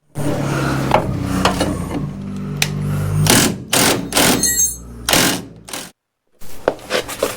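Pneumatic air hammer chattering against a car's steel frame rail while the crumpled metal is worked straight. A steady rapid buzz for about three seconds gives way to several short loud bursts with a brief metallic ring, then scattered knocks near the end.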